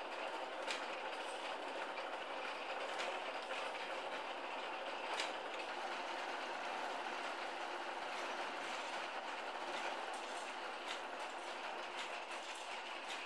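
Large wooden warping reel turning as yarn is wound onto it from a rack of spinning bobbins: a steady rattle with scattered sharper clicks.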